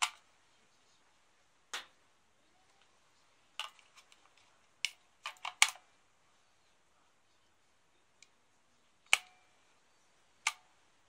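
Plastic battery checker with a D-cell battery in it being handled: about ten sharp clicks and knocks at irregular intervals, the loudest about five and a half and about nine seconds in.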